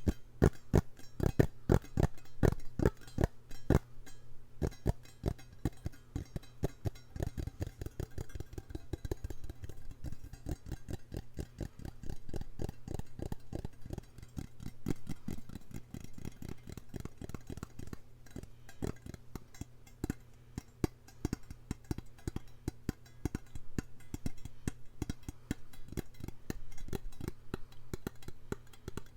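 Rapid tapping or clicking on a hard object as an ASMR trigger: many short, sharp taps a second, louder for the first few seconds and lighter after that, over a steady low hum.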